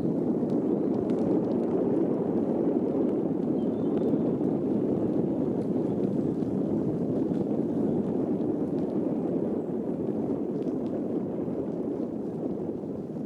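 Jet airliner passing overhead: a steady low rumble that eases off slowly toward the end.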